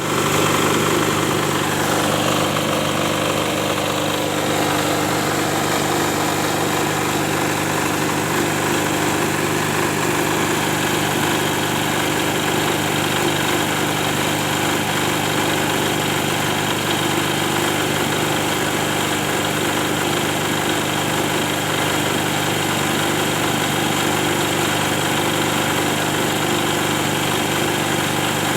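Silent-type generator set's engine running steadily, freshly rebuilt after an engine overhaul.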